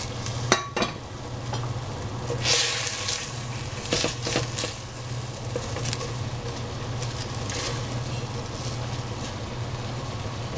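Mushrooms, zucchini and bean thread sizzling in a pan with a little water added, with a few sharp clicks and taps of a utensil stirring near the start and around four seconds in. A steady low hum runs underneath.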